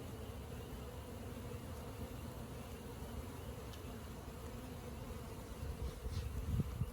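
A mass of honeybees buzzing in a steady hum as a package of bees is installed in a hive box. A few low bumps come near the end.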